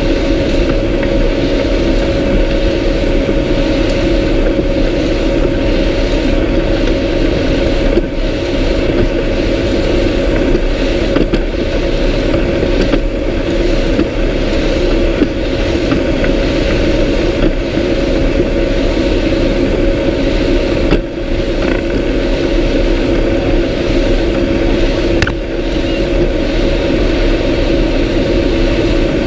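Steady drone of a C-130 Hercules's four turboprop engines with wind rushing past the open jump door, heard from the door in flight.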